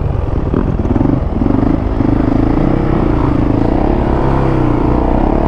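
Yamaha dirt bike engine running under throttle on the move, heard from the rider's own bike with wind rush. Its pitch climbs in the first second or two, then holds steady.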